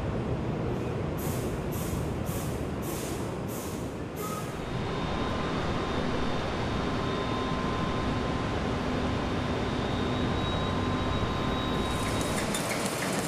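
Steady mechanical rumble and hiss of an aircraft carrier's hangar deck, with short hissing bursts about twice a second in the first few seconds and a faint steady whine joining about five seconds in.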